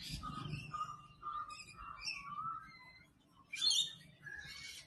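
Several birds chirping and calling in short, scattered notes, with a brief louder, harsher sound about three and a half seconds in.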